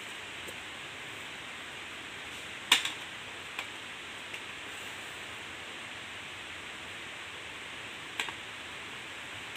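Steady hiss with a few sharp clicks, the loudest about three seconds in and a double click near the end.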